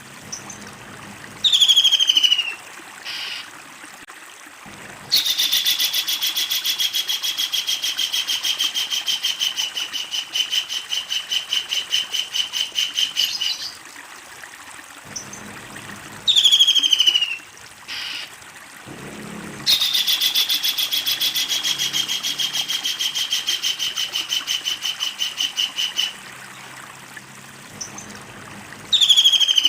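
Kingfisher calling: a short screech falling steeply in pitch, then a long, fast rattling trill lasting about eight seconds. The pattern repeats once, and a third screech comes near the end.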